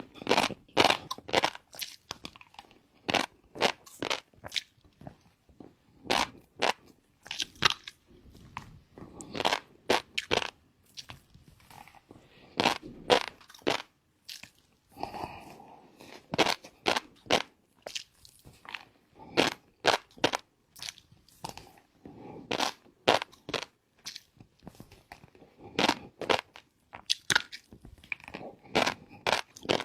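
A person biting and chewing crunchy food, in clusters of crisp crunches separated by short pauses.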